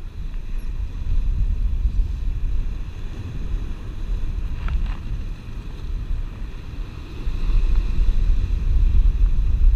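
Wind buffeting the microphone over ocean surf washing against the rocks, a low rumble that grows louder near the end. A brief click about five seconds in.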